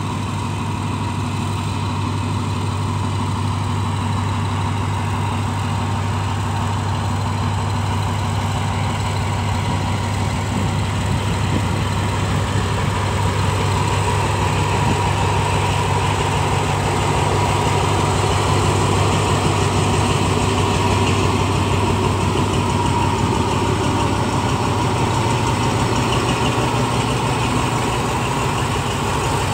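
Diesel-electric locomotive's engine running steadily at low revs, a constant low hum with a steady higher tone over it, growing slightly louder toward the middle.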